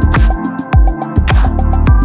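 Electronic background music with a steady beat: deep kick drums that drop in pitch, quick hi-hat ticks, and held synth notes.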